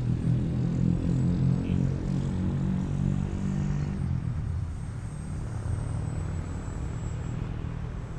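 Battery-electric Ugly Stick RC model airplane flying past: a low motor-and-propeller drone that is loudest in the first half and fades after about four seconds, with a faint high whine that slides slightly down in pitch.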